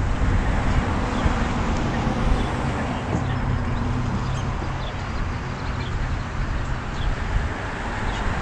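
Steady low hum of outdoor background noise, with a few faint short chirps, typical of birds, above it.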